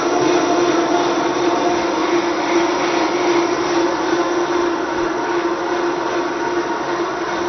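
Vitamix blender running at high speed, blending water, cashews and shredded carrots: a loud, steady motor whine with an even hum, its blades churning the liquid.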